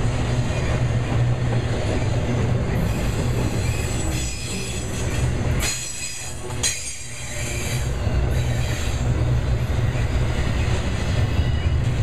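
Trailer-on-flatcar cars of a long intermodal freight train rolling past: a steady low rumble of wheels on rail. A high wheel squeal rises over it from about three to nine seconds in, with a brief dip in loudness around six seconds.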